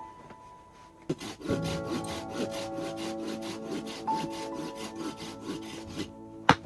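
Hand saw cutting through wood in rapid, even strokes, over background music with sustained tones.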